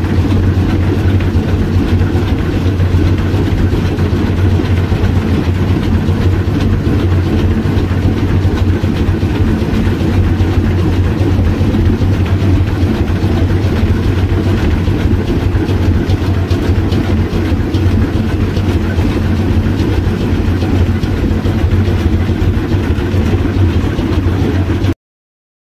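Moving train's steady rumble and rail noise, heard from on top of the car; the sound cuts off suddenly near the end.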